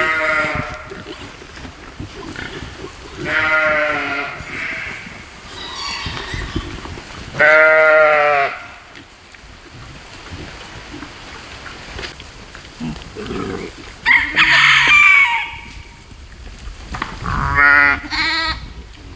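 Goats and sheep bleating, five separate calls spread over the stretch, the loudest about eight seconds in.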